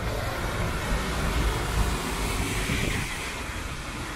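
Street traffic on a wet road: a steady hiss of tyres on wet asphalt over a low engine rumble, swelling about two seconds in as a vehicle passes.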